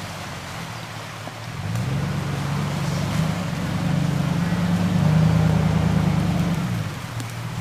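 A car engine revs up about two seconds in, holds the higher revs for several seconds, then eases back down near the end.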